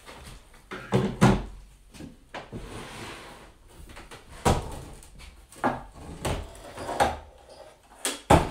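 A wooden drum-carder frame being tilted, lifted and turned over on a table: a string of irregular knocks and bumps of wood against wood, about eight in all, the loudest about a second in.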